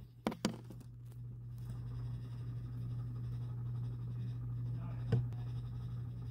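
A steady low hum, with two sharp clicks in the first half-second and another about five seconds in.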